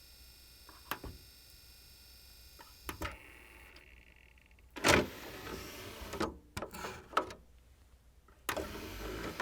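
A DVD player with a whining drive runs with steady high-pitched tones that stop about three seconds in after a couple of clicks. About five seconds in, the disc tray motor runs, followed by several plastic clicks of the disc and tray, and the tray motor runs again near the end.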